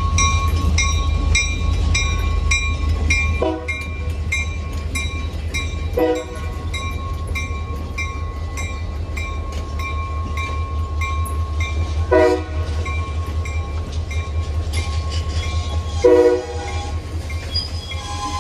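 Diesel freight locomotives rumbling while a bell dings steadily about twice a second. Four short horn toots sound over it, the last two the loudest.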